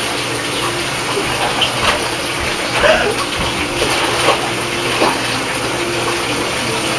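Water running steadily from a bathtub tap into the tub, with a few brief splashes over it as a head is held down in the water.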